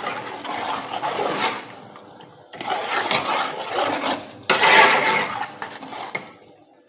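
Kitchen clatter: pots, dishes and utensils being handled and shifted, in three stretches of knocking and rubbing. The loudest starts sharply about four and a half seconds in.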